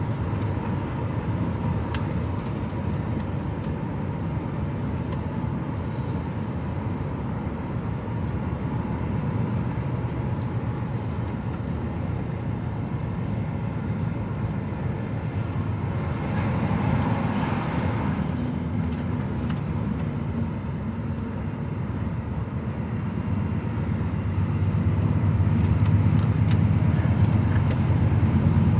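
DAF XF truck cruising, heard from inside the cab: a steady low diesel-engine drone with tyre and road noise. There is a brief swell of noise a little past halfway, and the sound gets louder near the end.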